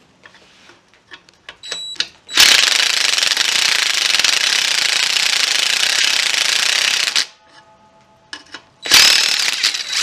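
Cordless impact driver hammering a socket on a nut welded onto a broken bolt stub, backing the seized bolt out. After a few short taps it runs hard for about five seconds, stops, and hammers again in a shorter burst near the end.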